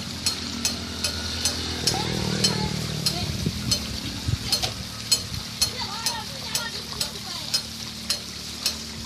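Wooden Persian wheel water lift turning at a well, giving a steady clack about twice a second over a continuous hiss of running water.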